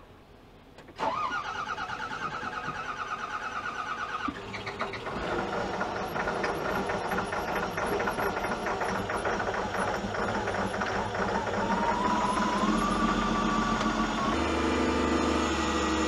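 Cat 950G wheel loader's diesel engine being cranked by the starter for about three seconds, then catching and running, on its first start after new injector cups were fitted. A rising whine comes in about three-quarters of the way through, and the engine settles into a steadier idle near the end.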